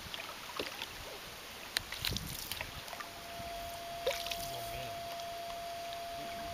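Water lapping, with scattered light knocks of a small boat on the river, the loudest about two and four seconds in. A steady single tone sets in about three seconds in and holds.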